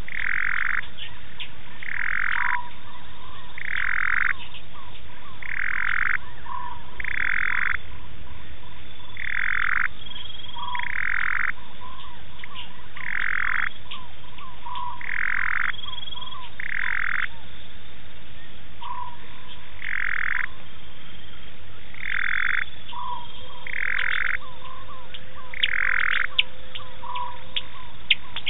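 A frog calling over and over, one short call about every one and a half to two seconds, with a few sharp clicks near the end.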